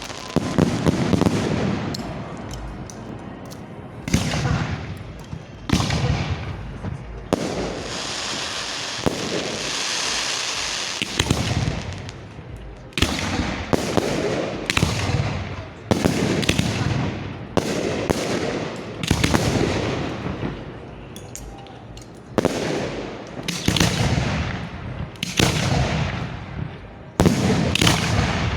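Fireworks salute heard at close range from the firing line: shells firing and bursting in quick succession, a sharp bang every second or two, each followed by a rumbling echo. About seven seconds in, a steady hissing crackle runs for a few seconds.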